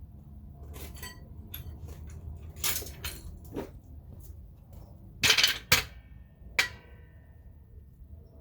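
Metal tools and hardware clinking and knocking during work on a car door: a scatter of light clicks, then three louder clanks about five to seven seconds in, the last one ringing briefly.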